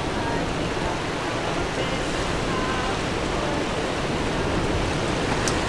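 Ocean surf washing steadily onto the shore, an even rushing noise.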